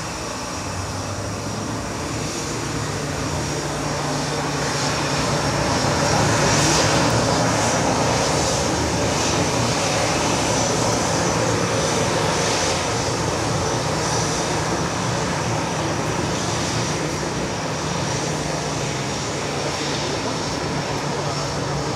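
Airbus A320's twin jet engines running at taxi power as the airliner taxis close by: a steady high whine over a low rumble, growing louder over the first several seconds and then holding.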